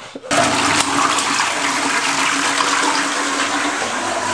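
Toilet flushing: a loud rush of water that starts suddenly just after the beginning and keeps going steadily.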